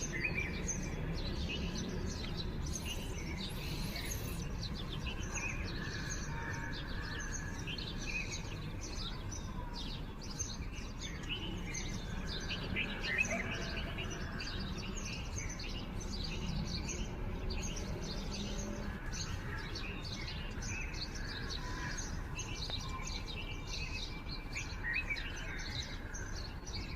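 Several birds chirping and calling almost without pause, many short overlapping calls, over a steady low background rumble.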